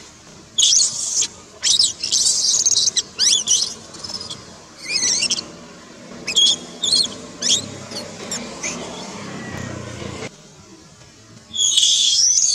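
Infant long-tailed macaque screaming in distress: a string of shrill, high cries in short bursts, some sliding in pitch. They stop for a few seconds, then one more cry comes near the end. These are the distress cries of a baby being threatened by a bigger monkey.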